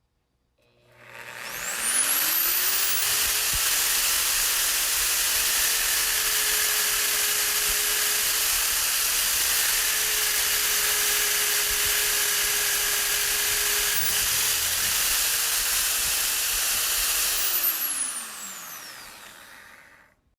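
Electric drill motor spinning up, running steadily with a whine and a loud hiss for about sixteen seconds, then winding down near the end.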